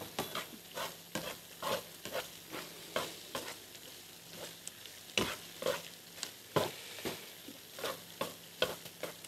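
Sliced onion frying in oil in a pan, with a light sizzle under irregular clicks and scrapes of metal tongs working in and around the pan, a few each second.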